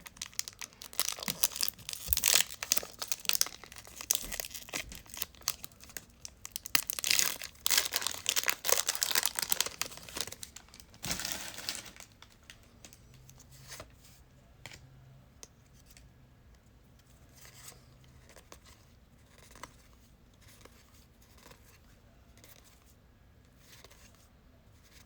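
A trading-card pack wrapper being torn open and crinkled, loud and crackling for about the first twelve seconds. After that come faint, scattered clicks as the cards are handled and flipped through.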